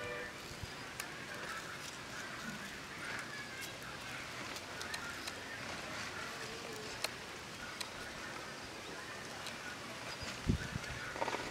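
Rural outdoor ambience with scattered bird calls and a few faint clicks, then a dull thump about ten seconds in.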